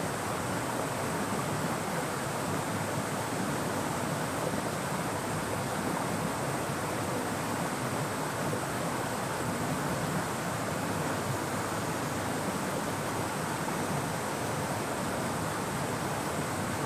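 Hozu River flowing steadily, an even, unbroken rush of water, with a thin, steady high cicada drone behind it.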